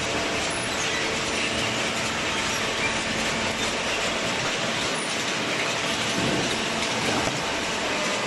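Hydraulic cardboard baler running, a steady mechanical clatter and hum.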